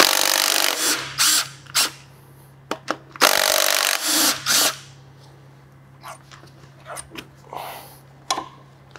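Small cordless power tool running in short bursts, loudest through the first second and again from about three to four and a half seconds in, undoing the connecting-rod bolts inside a bare diesel engine block. After that come a few light metallic clicks as the parts are handled.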